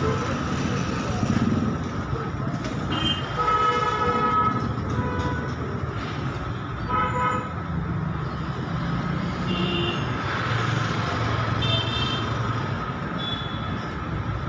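Road traffic with vehicle horns honking several times, the longest blast lasting about a second a few seconds in, over a steady low rumble.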